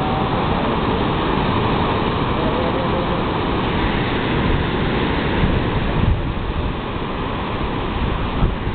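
Steady rushing roar of ocean surf mixed with wind buffeting the microphone, with a few sharper gusts a little past the middle.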